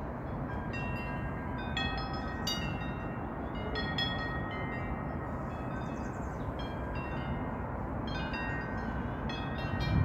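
Metal-tube wind chime ringing in the breeze: clusters of light strikes with lingering bell-like tones, fewer in the middle stretch. A steady low rumble runs underneath.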